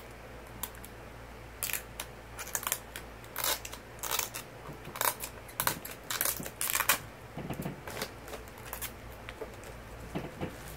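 Sticky security tag being picked and peeled off a plastic Blu-ray case, giving a string of irregular crackles and clicks that are busiest in the middle and thin out near the end.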